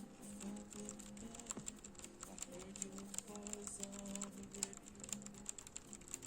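Laptop keyboard keys being pressed in a quick, irregular run of clicks, with music playing underneath.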